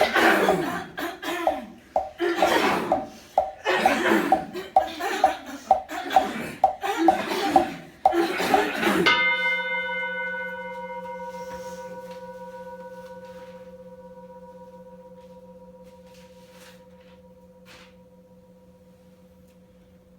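A group clearing their throats in a rhythmic chorus of short, loud bursts. About nine seconds in, a Buddhist bowl bell (rin) is struck once. It rings with several steady tones and slowly fades away.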